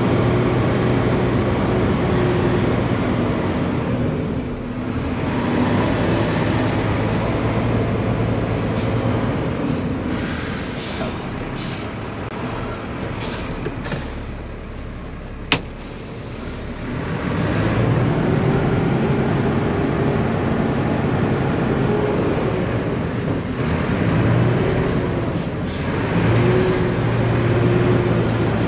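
Diesel engine of a Mack McNeilus garbage truck heard from inside the cab, running with its pitch rising and falling several times as the truck maneuvers. Several short hisses come through, and the engine drops quieter for a few seconds near the middle, where a single sharp click sounds.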